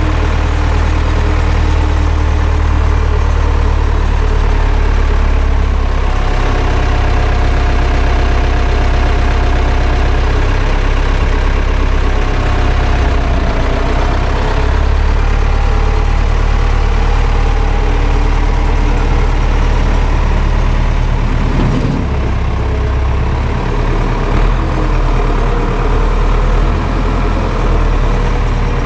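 Zetor 7011 tractor's four-cylinder diesel engine running steadily.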